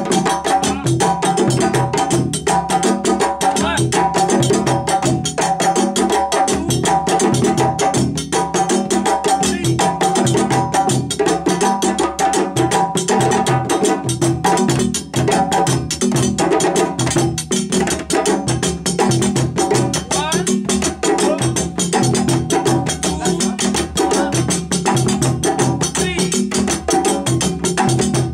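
West African drum ensemble playing a fast, steady rhythm: several djembes struck by hand with slaps and tones over dundun, sangban and kenkeni bass drums. A metal bell rings in a repeating pattern above them for much of the time.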